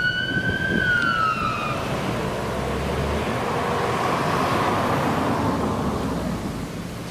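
Scania P280 fire engine's siren on a slow wail, holding, then falling away and cutting off about two seconds in. The fire engine's running and road noise carries on afterwards and fades near the end as it pulls away.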